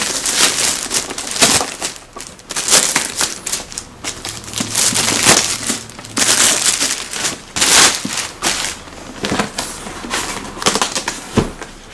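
Clear plastic packing wrap and cardboard rustling and crinkling in irregular bursts as a boxed figure is pulled out of a shipping carton.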